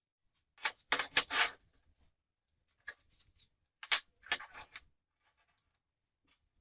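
Metal parts clinking and clattering as they are handled on a workbench, in two short bursts of quick knocks about three seconds apart, with a few small ticks between.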